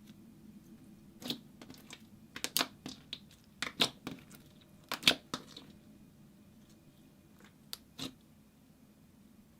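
Clear slime being worked by hand, giving a scattered series of sharp clicks and pops, loudest and most frequent in the middle.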